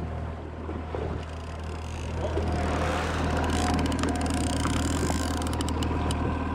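Outboard motor running steadily at trolling speed, a low even hum with water and wind noise over it. About two seconds in the sound grows louder with a faint whine, and rapid sharp ticks come in over the second half.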